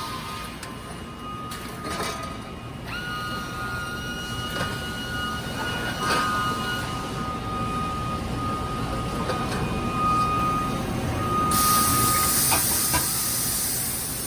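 Welding-line machinery for a car's rear cross-member running: a steady low hum under a steady high whine, with scattered clicks and clanks, and a loud rush of air hiss starting about three seconds before the end.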